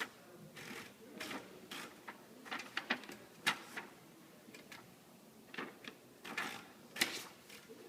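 Electric typewriter being typed on: irregular key strikes, sometimes several in quick succession, sometimes a pause between, with the loudest strikes about three and a half seconds in and near the end.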